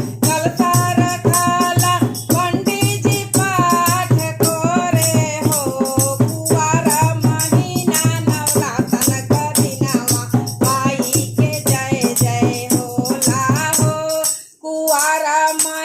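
A woman singing a Bhojpuri devotional folk song to the goddess (Mata Rani geet for Navratri) over rhythmic percussion with a steady beat. The music breaks off briefly about 14 seconds in, then resumes on a held note.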